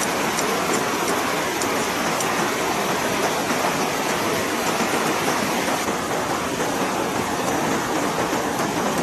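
River water rushing over rocks in shallow rapids, a steady loud rush.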